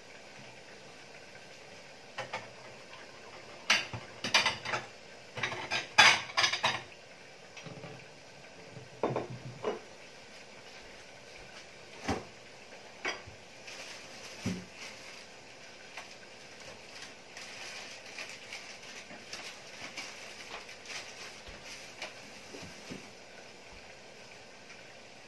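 Dishes and cutlery clinking and clattering: a flurry of sharp clinks and knocks from about two to ten seconds in, then a few single clinks.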